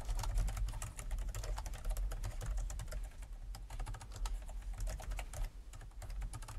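Typing on a computer keyboard: quick, irregular keystrokes with a short pause about five and a half seconds in.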